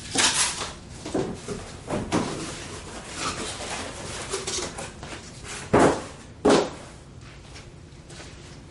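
Cardboard packaging rustling and scraping as pieces are lifted out of a large grill shipping box. A little under six seconds in come two loud, sharp thumps about two-thirds of a second apart as a cardboard-packed grill part is set down.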